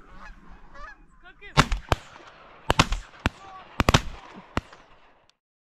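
Geese honking, then about eight shotgun blasts over roughly three seconds, two of them almost on top of each other. The sound cuts off suddenly near the end.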